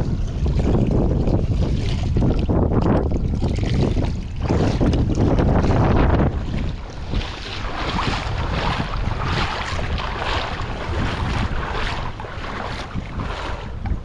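Strong wind buffeting the microphone over choppy shallow water splashing and lapping around a wading angler. The low wind rumble is heaviest in the first half, after which the hiss of the water comes forward.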